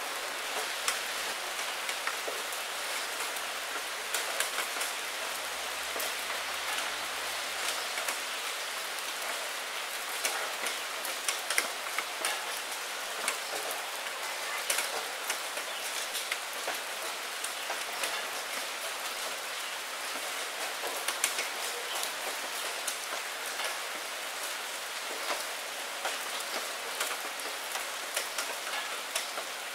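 Rain falling on a window pane: a steady hiss with many separate drops tapping sharply against the glass.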